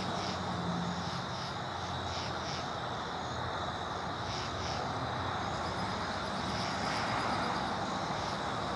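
A steady distant hum, with insects calling over it: a constant high trill and short chirps repeating about two to three times a second.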